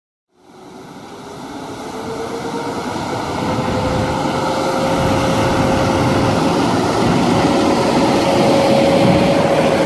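PKP Intercity EP09 electric locomotive hauling a train of passenger coaches past at close range: steady rumble of wheels on rail with a whine from the locomotive that rises in pitch over the first few seconds and then holds steady as the train gathers speed.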